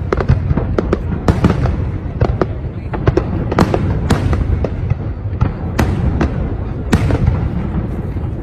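Aerial fireworks display: an irregular run of sharp bangs and crackles, several a second, over a continuous low rumble of bursting shells.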